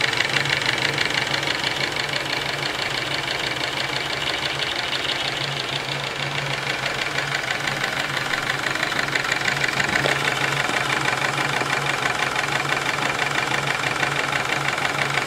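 Small homemade twin-cylinder, double-acting brass steam engine running fast on live steam, a rapid, even mechanical beat that holds steady. It is belt-driving a small DC motor as a generator, so it is running under load.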